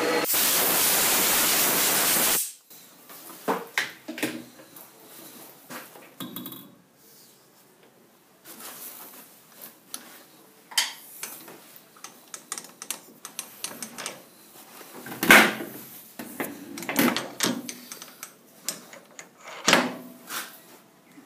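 A loud, even hiss for the first couple of seconds that cuts off suddenly, then scattered clicks, knocks and clinks of a steel drill chuck being handled and set down on the lathe's metal carriage. The loudest knock comes about fifteen seconds in.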